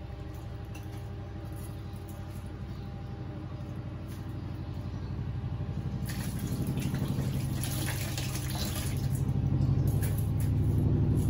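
Kitchen sink tap running for about three seconds, starting about halfway through. Under it, a steady low hum grows louder toward the end.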